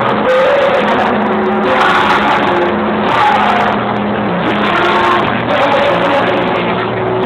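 Live acoustic rock band playing: strummed acoustic guitars with held notes and singing.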